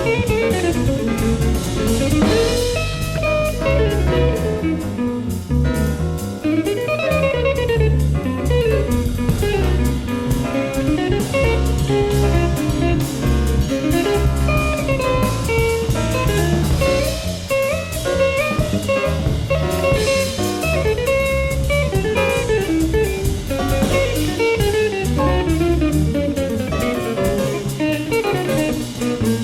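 Live small-group jazz with guitar, bass and drums playing continuously, a busy melodic line running over walking bass and cymbals, heard from an FM broadcast recorded on cassette tape.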